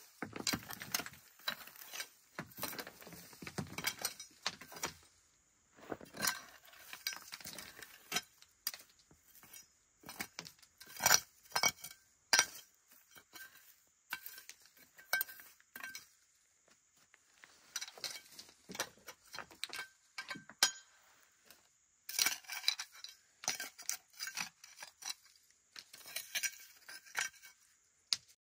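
Metal knife blade scraping and chopping into stony ground and loose gravel: irregular runs of scrapes and metallic clinks with a few sharper strikes, stopping briefly now and then.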